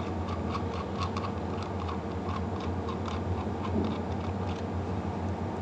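Faint, irregular light clicks and ticks, a few a second, as metal quick coupler fittings are handled, over a steady low hum.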